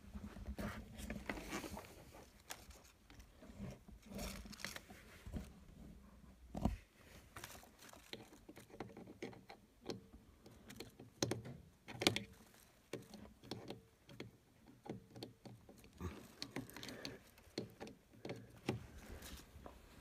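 Handling noise of a charger cable and plug being fiddled with at a wall outlet: scattered light clicks, taps and rustles, the sharpest a few knocks around the middle.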